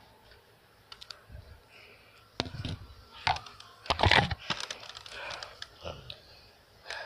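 A run of sharp clicks and knocks, with a cluster of louder thumps and rustling a little over halfway in.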